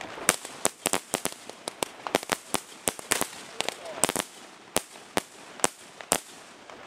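Fireworks going off: about twenty sharp bangs and cracks at irregular intervals, from aerial shell bursts and firecrackers, some loud and close, others fainter.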